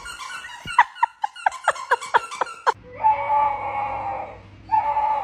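A dog giving a rapid string of short, high yips that fall in pitch, about eight in under three seconds, then two long, steady whines.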